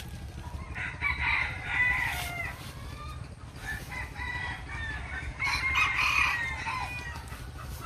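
Rooster crowing twice, the first crow about a second in and the second around five and a half seconds in, with smaller calls between, over a steady low hum.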